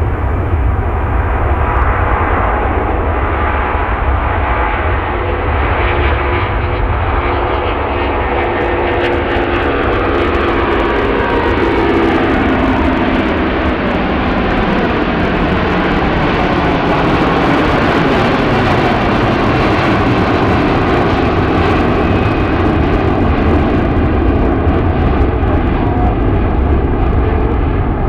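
Airbus A330-300 jet airliner taking off, its engines running at takeoff power in a loud, steady roar. Whining tones in it fall in pitch about eight to fourteen seconds in as the aircraft passes.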